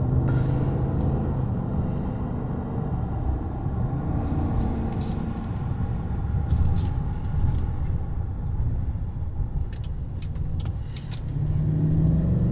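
Interior of a 2019 GMC Yukon XL Denali driving, with its 6.2-litre V8 running under steady road and tyre rumble and a few light clicks. Near the end the engine note grows stronger as the truck pulls harder.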